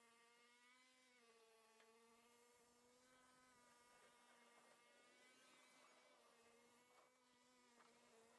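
Near silence with a faint, steady buzzing whine that wavers slightly in pitch.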